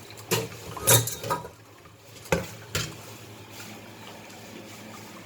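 Kitchen pots and utensils being handled: about five clanks and knocks in the first three seconds, the loudest about a second in, then only a steady low hiss.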